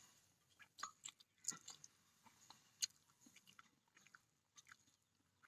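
Faint, sparse wet clicks and squelches of fingers mixing and squeezing rice with leafy curry on a steel plate, with one sharper click about halfway through.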